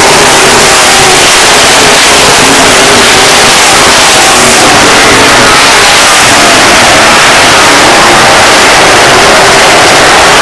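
A pack of dirt-track modified race cars racing at full throttle, several engines overlapping with wavering pitches as they rise and fall through the turns. The sound is very loud and steady throughout.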